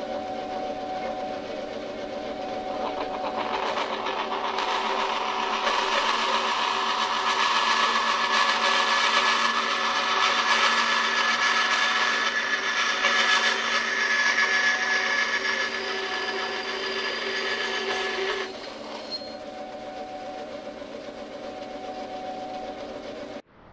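Band saw running with a steady motor hum. A few seconds in, the blade starts cutting a small aluminum bracket, a harsh rasping that lasts about fifteen seconds. Then the saw runs free again until it cuts off near the end.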